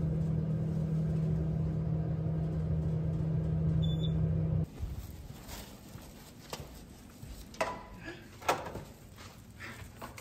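Steady hum of an elevator car travelling, with a short high beep about four seconds in. The hum cuts off suddenly, and a few soft footsteps and the rustle of a plastic carrier bag follow on a carpeted hallway.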